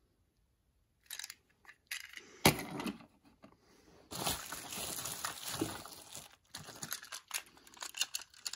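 Toy-train packaging being unwrapped by hand: rustling and crackling handling noise, with a sharp knock about two and a half seconds in and a longer stretch of steady rustling from about four to six seconds.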